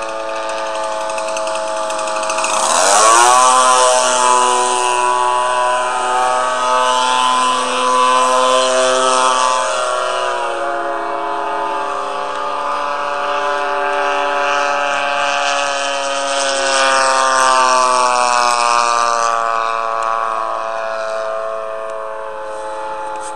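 Small engine of a radio-controlled Staggerwing biplane running in flight. Its pitch sweeps up sharply about three seconds in, then holds, shifting with the throttle as the plane flies about.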